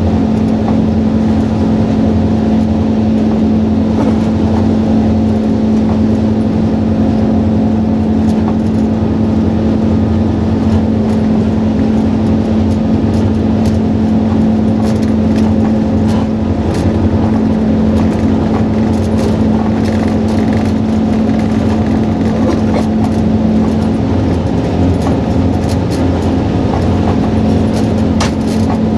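Diesel locomotive heard from inside the cab, running steadily with a strong, constant hum, with a few short clicks near the end.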